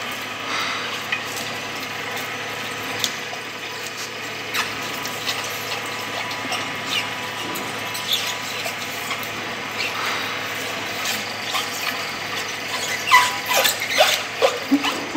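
Small stainless steel oil expeller (marachekku) running with a steady motor hum while dried coconut pieces are fed into its hopper, with scattered light clicks. A few short squeaks come near the end.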